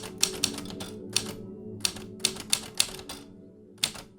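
Irregular sharp clacks, like typewriter keys striking, over a low held music chord.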